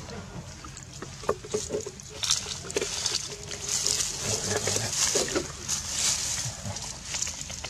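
Dry leaf litter rustling and crackling in irregular bursts as macaques and a hand move through it.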